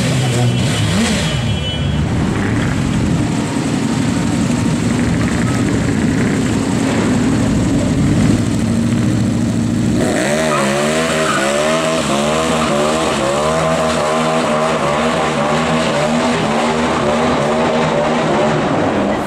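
A superbike engine running and revving amid loud street traffic. About halfway through, after a cut, a three-wheeled Can-Am Spyder's engine is revved in repeated blips, its pitch rising and falling about once a second.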